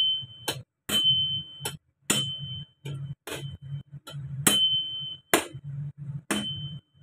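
A husked brown coconut being struck repeatedly with a cleaver to crack its shell open: sharp knocks about once a second, most of them followed by a short high ring.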